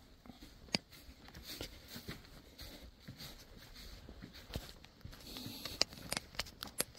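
Faint footsteps crunching on a straw-covered barn floor, with a few sharp clicks, one about a second in and several close together near the end.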